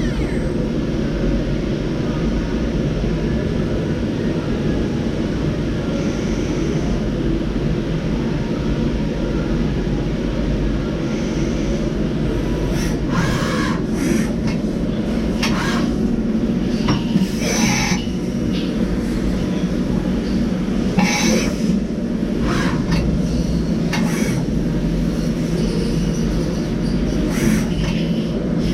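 DMG DMU 50 five-axis machining centre running under power, a steady mechanical hum and rumble. From about twelve seconds in, brief bursts of hiss come and go every second or two.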